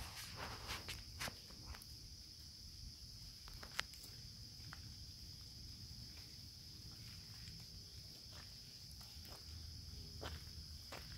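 A faint, steady high-pitched insect chorus, with scattered soft clicks and crunches of footsteps on fallen leaves. The steps come in a cluster at the start, one sharp click a few seconds in, and more near the end.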